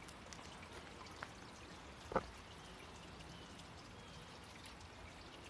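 Creek water trickling faintly, with one sharp tap about two seconds in.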